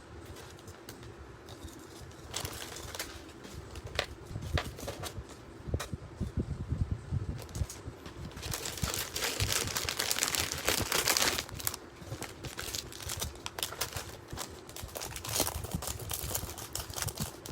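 Packaging being handled and opened: crinkling and rustling of wrapping with many small sharp clicks, loudest and densest for a few seconds in the middle.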